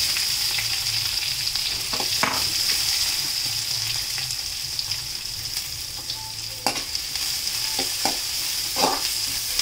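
Chopped onions sizzling in hot oil in a metal kadai, a steady hiss that is loudest at the start as the onions go in. A metal ladle knocks and scrapes against the pan a few times as they are stirred.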